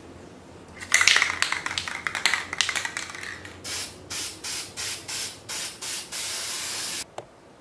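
Aerosol can of metallic gold spray paint: a couple of seconds of rapid rattling as the can is shaken, then a run of short spray bursts and one longer burst that cuts off suddenly.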